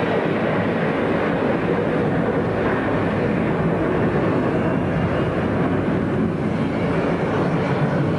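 McDonnell Douglas MD-11 airliner's three jet engines at takeoff power as it climbs out just after liftoff: a steady, dense jet noise.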